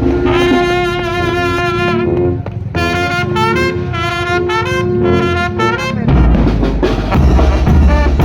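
Mexican brass band (banda) playing. The horns hold a melodic phrase of sustained notes with vibrato, broken briefly about two seconds in. At about six seconds the tuba and bass drum come back in with heavy, steady low beats.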